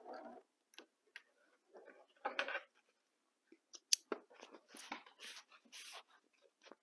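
Cotton quilting fabric being pulled off a sewing machine and handled: scattered soft clicks and rustles, a short burst of rustling about two seconds in, a sharp click about four seconds in, then longer rustles of the fabric strip near the end.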